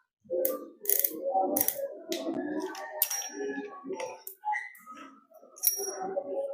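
Sharp metallic clicks and rattling from an airsoft revolver being handled, the clicks coming irregularly about half a second to a second apart.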